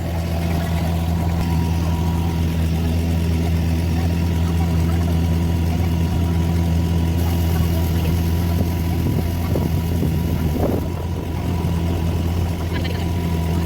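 Motorboat engine running steadily at an even pace, a constant low hum.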